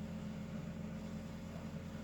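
Steady low mechanical hum with a hiss, unchanging throughout, with no snore or breath heard.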